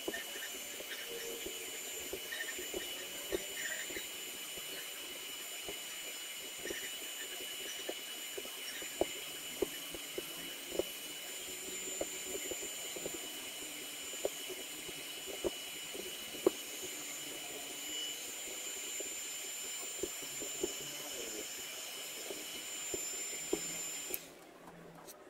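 Heat gun blowing hot air onto a woofer's outer edge to soften the adhesive: a steady airy hiss with a thin high whine, with scattered light clicks. It cuts off suddenly about a second before the end.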